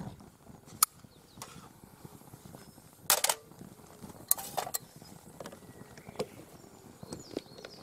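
Sharp clicks and clatters of small metal camp gear being handled on a perforated aluminium camp table. The loudest come as a cluster about three seconds in and again around four and a half seconds, over the low, steady sound of a freshly lit camp stove's flame.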